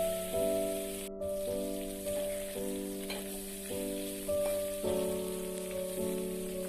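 Chicken wings sizzling as they fry, an even crackling hiss, over background music of held notes that change about once a second. The hiss cuts out briefly about a second in.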